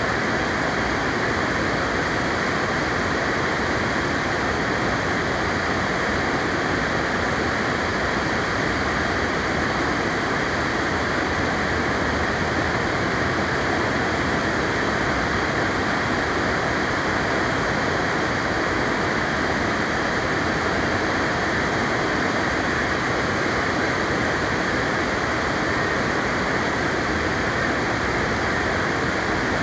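River water rushing steadily over a rocky ledge into white-water rapids, an unbroken even rush.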